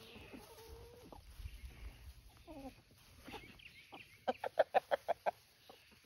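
Free-ranging chickens clucking: a drawn-out murmur near the start, scattered single clucks, then a quick run of about eight sharp clucks a little past four seconds in.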